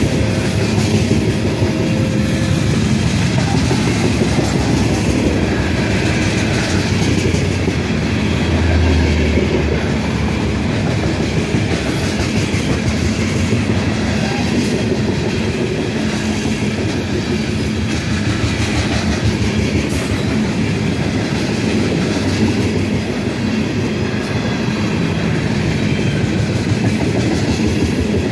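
Steel gondola freight cars rolling past close by: a steady, loud rumble and clatter of wheels on the rails.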